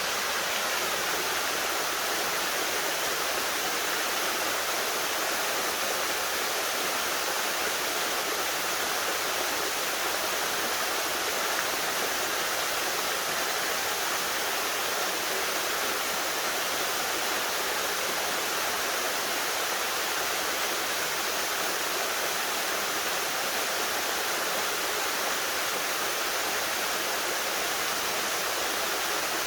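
Small waterfall rushing, a steady unbroken hiss of falling water.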